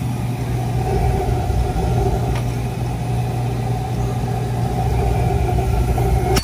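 Beckett oil burner firing waste oil: a steady, loud roar of the burner's blower and flame over a constant low hum. There is a light click a couple of seconds in.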